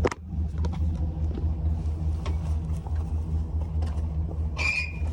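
Vehicle engine idling with a steady, pulsing low rumble. A short high squeal comes about four and a half seconds in.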